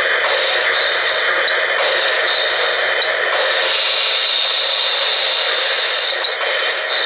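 Model steam locomotive's sound system giving off a loud, steady steam hiss while the engine stands still.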